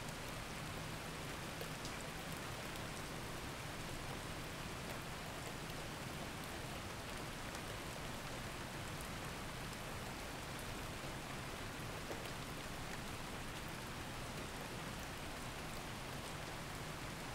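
Steady rain: an even hiss with scattered faint drop ticks and no change in level.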